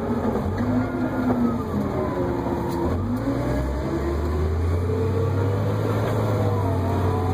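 Off-road haul truck's engine running under way, heard from inside the cab. Its pitch dips and climbs as the truck changes speed, and a steady low hum settles in about four seconds in.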